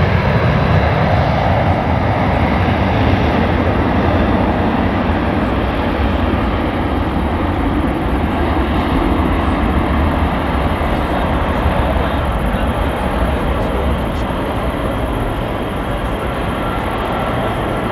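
Jet airliner taking off: a loud, steady rush of engine noise, heaviest in the low end, slowly fading toward the end.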